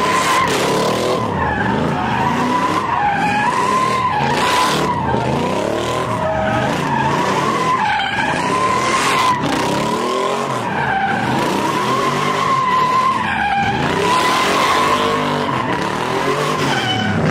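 Fox-body Ford Mustang doing donuts: its rear tires squeal without a break, the squeal wavering up and down in pitch as the car spins, over an engine revving up and down.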